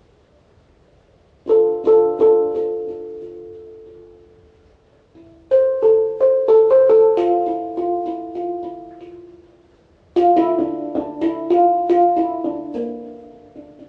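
Instrumental music of ringing notes, played in three short phrases that each start sharply and fade away, after a quiet first second or so.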